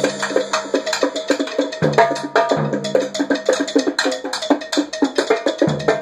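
Live percussion jam of a trap kit and goat-skin bongos playing a fast, busy rhythm of dry strikes. Low held notes, from the gourdaphone, come in at the start, about two seconds in, and again near the end.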